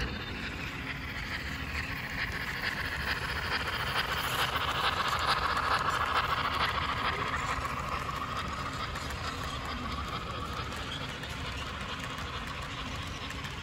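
HO scale model train, a Union Pacific 4-12-2 9000-class steam locomotive with freight cars, rolling past on the track with a steady whirring, rattling run. It is loudest as the locomotive goes by about five seconds in, then eases as the reefers follow.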